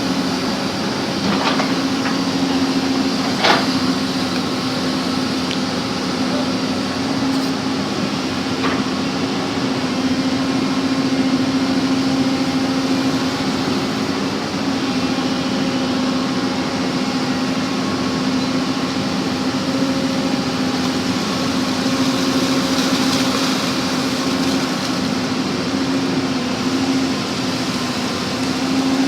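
Backhoe engine running steadily, with a sharp knock about three and a half seconds in.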